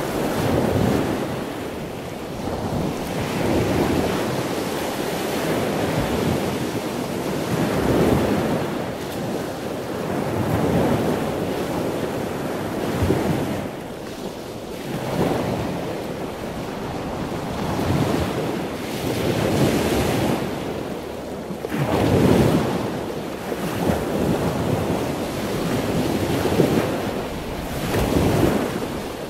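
Wind buffeting the microphone of a camera on a moving ride, a rushing noise that swells and eases in uneven gusts every second or two.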